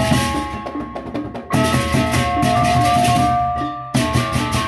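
Baleganjur gamelan ensemble playing: interlocking hand cymbals (ceng-ceng), double-headed kendang drums and a kettle-gong melody. Loud massed cymbal crashes hit at the start, about a second and a half in, and again near the end.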